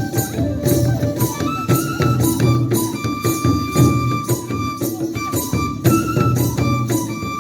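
Bodo traditional dance music: a high, held melody line over a fast, steady beat of drums and jingling percussion.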